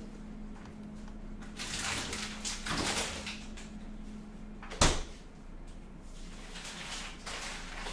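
Soft rustling and handling noises, with one sharp click about five seconds in, over a steady low electrical hum.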